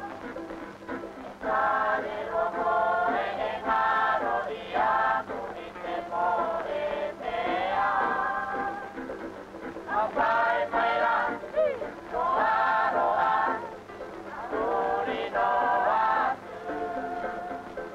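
A group of voices singing a choral song in short phrases with brief pauses between them, over a faint steady low hum.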